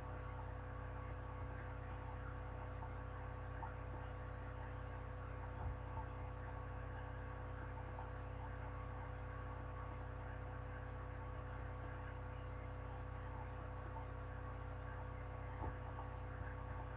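Steady electrical mains hum with a faint hiss, with two faint soft knocks, one about six seconds in and one near the end.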